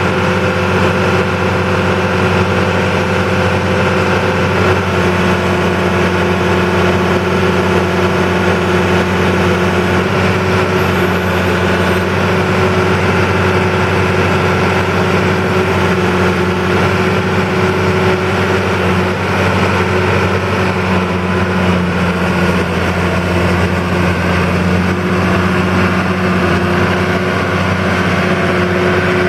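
New Holland TV-140 tractor's 7.5-litre diesel engine running steadily at a constant speed as the tractor drives slowly across the lot.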